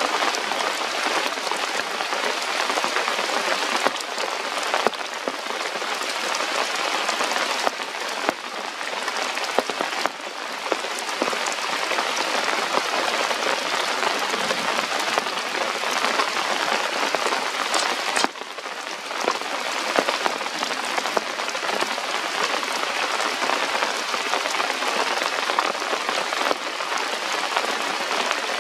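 Steady rain falling on forest foliage and rock, with many individual drops ticking sharply close by.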